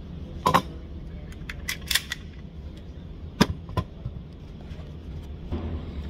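Sharp metallic clacks and knocks from handling an AP5-P pistol, about seven in all: one near the start, a quick cluster about two seconds in and two more a little later, over a steady low hum.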